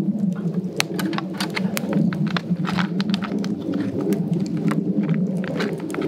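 Light clicks and rustles of food being handled: chopsticks and a plastic bag of shaved burdock root, over a steady low hum.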